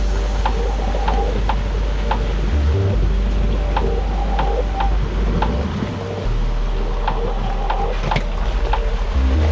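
Background music with a steady beat of about two beats a second over a bass line.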